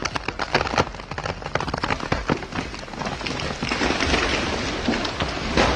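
Wood cracking and snapping in quick, irregular sharp cracks, then a rushing of branches and a heavy crash near the end: a tree giving way and coming down.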